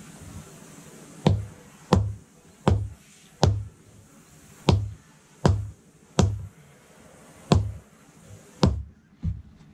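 Rubber mallet tapping a Pennsylvania bluestone flagstone down into its slurried mortar bed to set it level: about ten dull thuds, most roughly 0.7 s apart, beginning a little over a second in.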